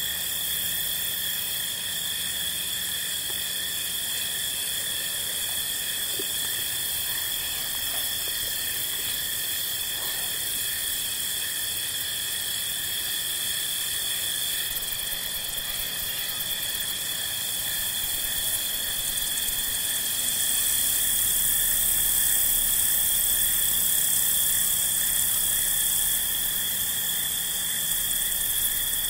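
Steady evening chorus of crickets and other insects, a continuous high-pitched trilling drone that swells a little about two-thirds of the way through.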